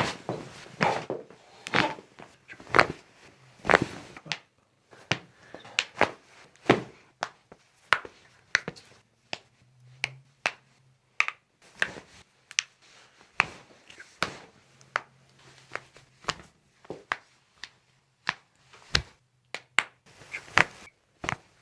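A rapid, irregular series of sharp cracks and pops, about two a second and varying in loudness: spinal and other joints cracking under chiropractic adjustments.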